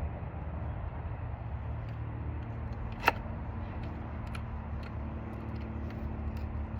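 A Husqvarna chainsaw's chain and bar being handled while the chain is fitted back on: a few faint clicks and one sharp click about three seconds in, over a steady low hum.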